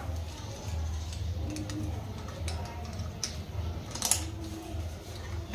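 Small clicks and scrapes of an open-face helmet's chin strap and buckle being fastened and adjusted, with one sharper click about four seconds in.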